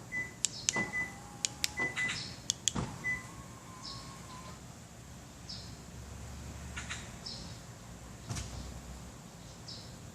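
An aftermarket car alarm and remote-start system being operated, with short high beeps and sharp relay or lock clicks in the first few seconds, then a low hum for a few seconds in the middle.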